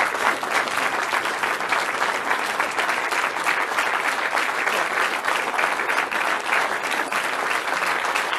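A room of supporters applauding, with dense, steady clapping throughout.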